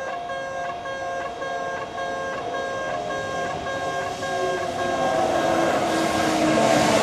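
Japanese level-crossing warning bell ringing, a repeating electronic clang at about two strokes a second. Over the last few seconds a train draws near, its noise growing under the bell with a falling whine.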